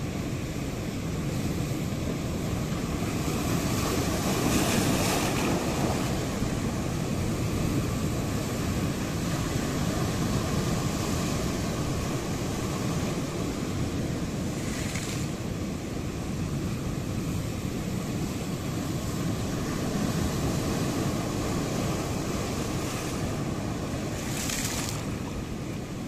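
Ocean waves breaking on the shore: a steady rushing wash, with brighter surges of hiss about four, fifteen and twenty-four seconds in.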